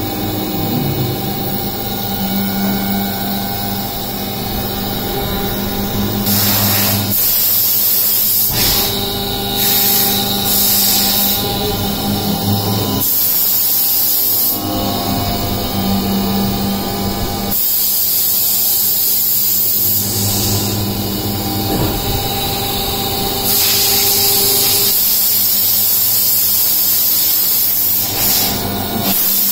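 Haas CNC vertical milling machine's spindle running steadily with an end mill cutting circular grooves into a white plate. Loud spells of compressed-air hiss come and go several times, each lasting one to four seconds.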